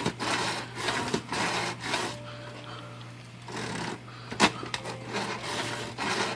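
Royal 10 typewriter carriage being worked back and forth by hand on its guide rollers: a series of rough rubbing strokes from a binding carriage whose rollers and trucks have just been wetted with thinner. There is a sharp click a little after the middle.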